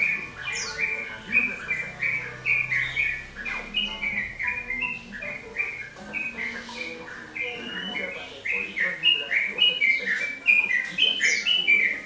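Yellow-vented bulbul singing on and on: a fast, chattering string of short, clear notes, phrase after phrase without a break.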